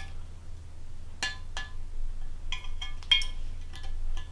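About seven light metallic clinks, some in quick pairs, each ringing briefly: a small hex (Allen) wrench knocking against the cast-iron lathe headstock as the bottom oil-drain set screw is backed out.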